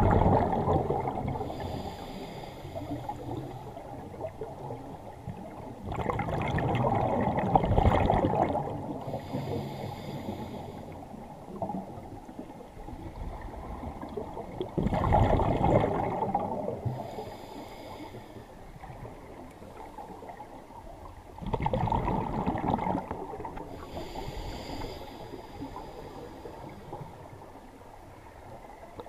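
Scuba diver breathing through a regulator: four bubbling rushes of exhaled air, roughly every seven seconds, with a faint hiss of inhalation between them.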